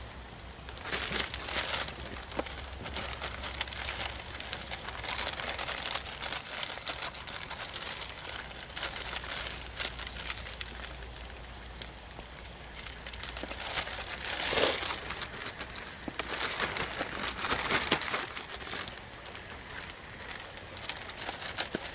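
Salt pork sizzling in a skillet over a crackling campfire: a steady frying hiss scattered with small pops and cracks. Now and then there are louder rustling and scraping bursts from the cornmeal batter being mixed.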